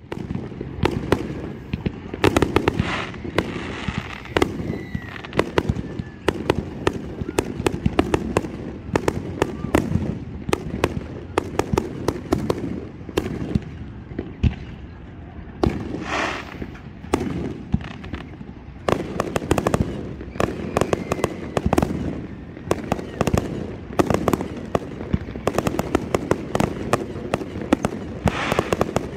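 Fireworks going off in a dense, continuous run of crackling bangs, with voices underneath.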